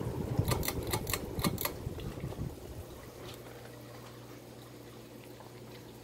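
Ceiling fan's pull-chain switch worked by hand: a quick run of about six clicks from the chain and switch, over the rush of air from the spinning blades. About two and a half seconds in the rush dies down, leaving the fan motor's steady low hum as the blades keep turning.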